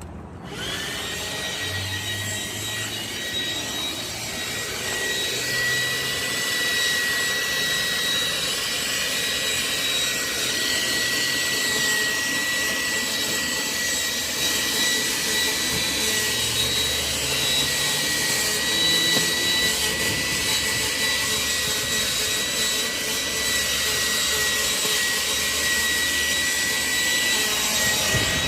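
A 12-volt vacuum cleaner is switched on about half a second in and runs steadily. The motor gives a high whine over a rushing hiss and gets louder over the first few seconds as it spins up.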